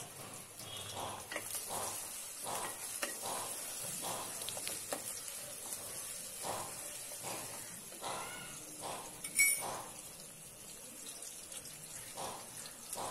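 Sliced onions frying in soybean oil in a metal pot with a faint sizzle, stirred with a wooden spatula in short scraping strokes about twice a second. There is one sharp clack about nine seconds in.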